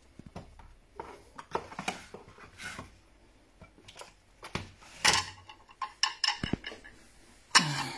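Kitchen utensils and cookware clinking and knocking at irregular intervals, loudest about five seconds in and again near the end.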